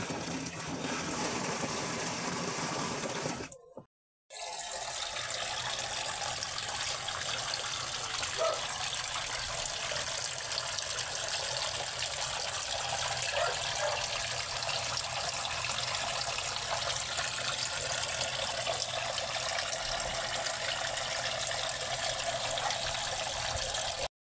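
Water from a pump-fed pipe pouring into a tank of water, a steady splashing and gushing. It drops out briefly about four seconds in, then carries on unchanged.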